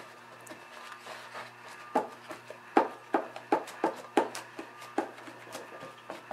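Wet paper towel dabbed against a stretched canvas: a run of quick taps, about two or three a second, starting about two seconds in.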